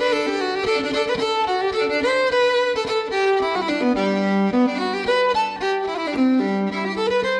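Instrumental background music: a melody of held and sliding notes over a lower sustained line.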